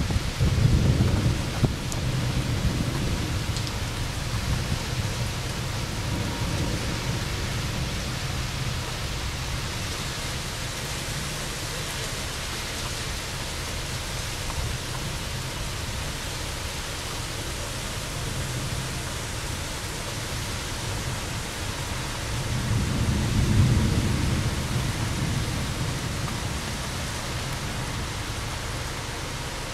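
Heavy rain falling steadily, with rolling thunder at the start and again about three-quarters of the way through.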